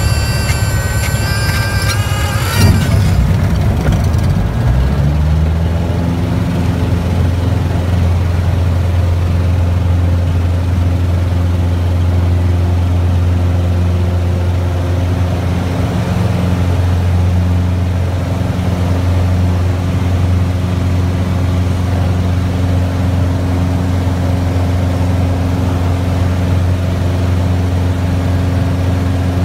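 Light single-engine propeller airplane's piston engine and propeller heard from inside the cockpit, its pitch rising to full power about four to six seconds in, then holding a loud steady drone through the takeoff roll and climb-out. A high, steady whine of several tones sounds for the first few seconds.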